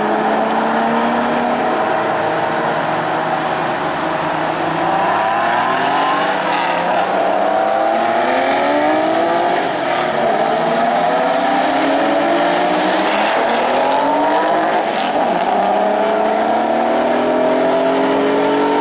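A stream of Porsche 911s going by one after another, their flat-six engines revving up in overlapping rising tones as each car pulls away.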